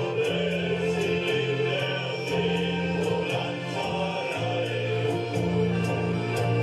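Men's shanty choir singing with piano accordion accompaniment, in slow held chords whose low notes shift every second or so.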